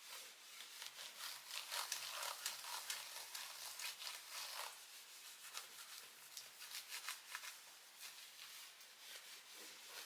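A cloth rubbing and wiping over a laptop's casing: faint, scratchy swishing with small ticks, busiest in the first half.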